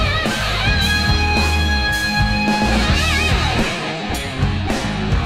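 Rock music: an electric guitar playing held notes with vibrato over bass and a steady drum beat.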